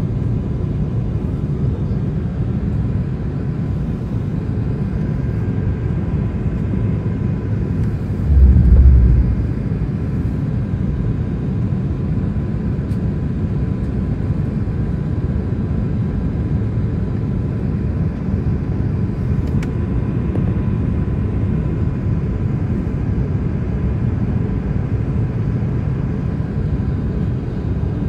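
Steady low cabin noise of an Airbus A380 airliner in descent, the airflow and engine sound heard from a window seat, with a faint steady high hum. About eight seconds in comes a brief, louder low thump lasting about a second.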